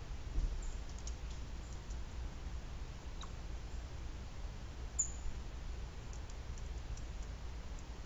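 Pileated woodpecker pecking at suet pellets through a metal-mesh feeder: faint, irregular sharp clicks, the clearest about half a second in and about five seconds in, over a steady low rumble.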